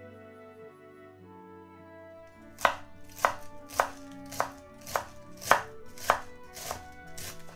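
Kitchen knife slicing pointed cabbage into strips on a wooden cutting board: nine sharp chops at an even pace, about one every 0.6 seconds, starting a few seconds in. Soft background music plays under it.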